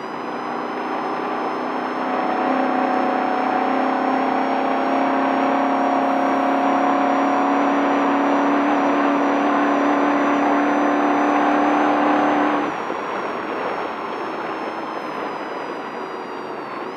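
Desert race truck's engine held under steady throttle at speed, its pitch creeping up slowly, over a steady rushing noise. About twelve and a half seconds in the engine note drops suddenly and quietens as the throttle comes off.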